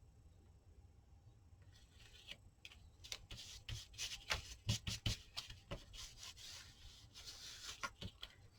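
Paper and card rustling and rubbing as they are handled and moved on a craft table, with scattered light taps and ticks, starting about three seconds in.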